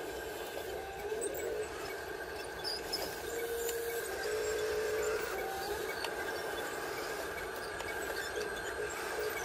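Small electric motors and gearboxes of radio-controlled toy construction vehicles whining as a toy dump truck drives forward. A steady high whine is joined by a lower whine that comes and goes.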